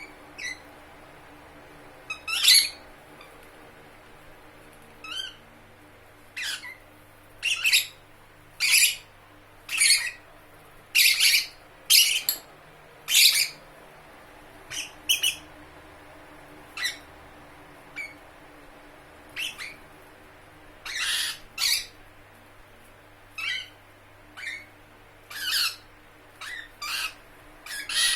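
Lovebird calling with short, shrill squawks, about one a second, some in quick pairs, with brief pauses between them.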